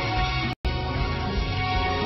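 Soundtrack music playing, with a split-second dropout to silence about half a second in.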